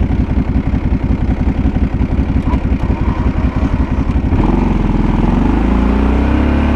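Kawasaki Brute Force 750 ATV's V-twin engine running at low revs with an uneven, pulsing beat. About four seconds in, the throttle opens and the engine revs up to a louder, steadier, slightly rising note as the quad drives forward under load, pushing snow with its plow blade.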